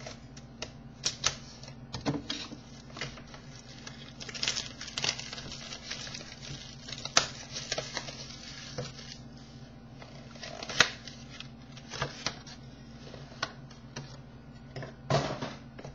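Scattered clicks, taps and crinkly rustles of a sealed trading card box and its packs being opened and handled, with a louder rustle about two-thirds of the way in and another near the end.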